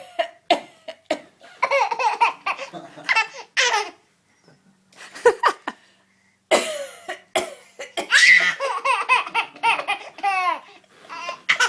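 Short fake coughs traded between an adult and an eight-month-old baby, with the baby laughing in bursts between them. There is a lull of near quiet around the middle.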